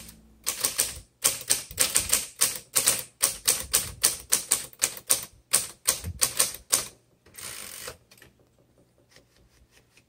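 Manual typewriter being typed on quickly, the keys and typebars striking the platen about four times a second. Near the end the typing stops and a short sliding rasp follows, as the carriage is returned.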